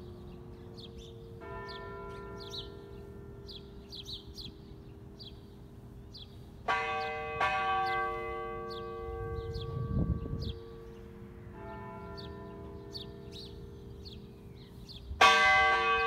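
Church bell tolling, struck about five times at uneven intervals, each stroke ringing on; the strongest strokes come midway and near the end. Small birds chirp throughout.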